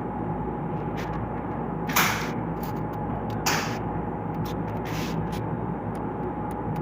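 Steady background noise with a constant faint hum, broken by sharp clicks or knocks: two stronger ones about two and three and a half seconds in, and several fainter ones between.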